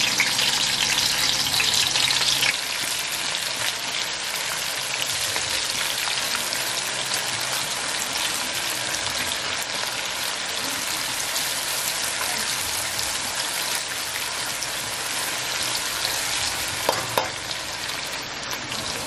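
Sliced red onions sizzling and crackling in hot red palm oil, loudest for the first couple of seconds as they go into the oil, then a steady sizzle as they fry.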